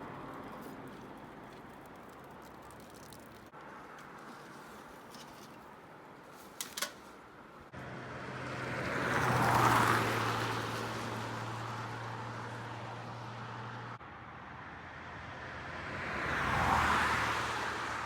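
Two vehicles passing on a highway, each swelling up and fading away, the first about ten seconds in and the second near the end. A short click comes a few seconds before the first.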